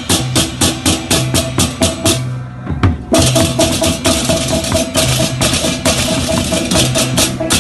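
Balinese baleganjur gamelan playing: cymbals clash in a fast, even pattern over sustained gong tones and drums. The clashing breaks off briefly about two and a half seconds in, then comes back in loud and dense.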